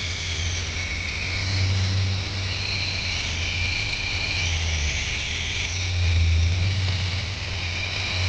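Small electric motors of a radio-controlled toy whining steadily, the pitch shifting slightly, over a low hum that swells and fades a few times.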